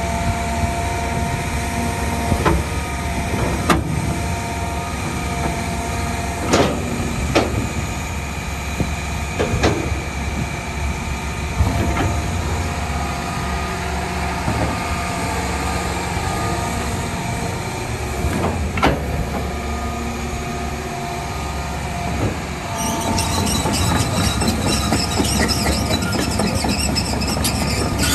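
John Deere 350G LC excavator's diesel engine running steadily at idle, with sharp metallic clanks every few seconds. A rasping hiss joins in near the end.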